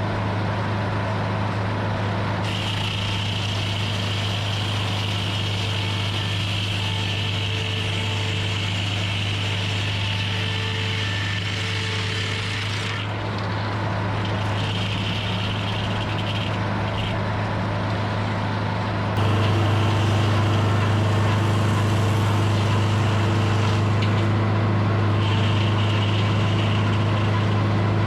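Edmiston hydraulic sawmill running with a steady engine hum, while a higher whine comes and goes several times as strips are sawn. The machine gets louder about two-thirds of the way through.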